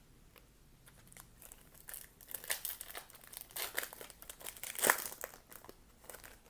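Foil wrapper of a Topps Chrome baseball card pack crinkling and crackling as it is handled and torn open, the loudest crackle about five seconds in.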